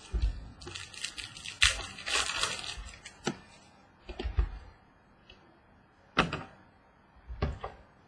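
Trading cards and their packaging being handled on a table: a stretch of crinkly rustling, with a few sharp clicks and soft knocks.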